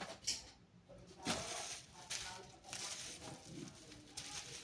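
Parcel packaging being handled: rustling and crinkling, with a couple of sharp knocks.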